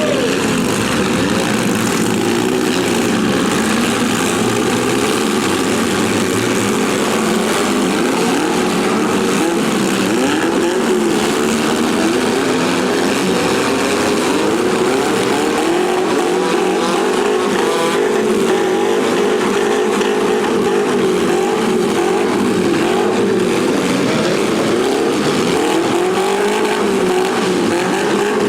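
Engines of several compact demolition derby cars revving up and down at once, their overlapping pitches rising and falling continuously.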